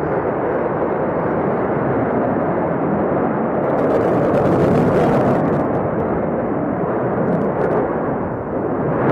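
Sukhoi Flanker-type fighter jet's engines, a loud steady jet noise as the aircraft manoeuvres overhead, turning harsher for a moment about four seconds in.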